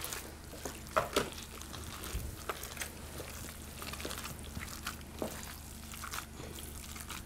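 Gloved hand kneading wet minced meat in a glass bowl: soft squishing with scattered light ticks, the loudest about a second in.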